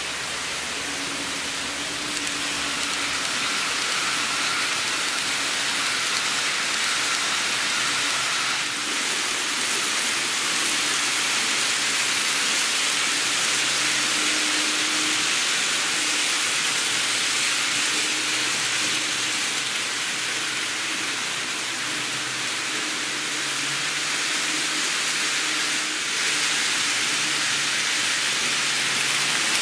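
N-scale model trains (an E231 series commuter set and an EF210 locomotive hauling container wagons) running on the layout track: a steady hissing rattle of small wheels on the rails with a faint motor hum.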